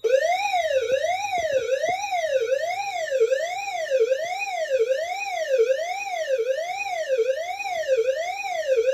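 Fire alarm suppression-release evacuation signal from a Notifier panel's digital voice command: an electronic tone sweeping evenly up and down, about four rises and falls every three seconds, played between the spoken 'code red' messages to signal that the suppression releasing system has been activated.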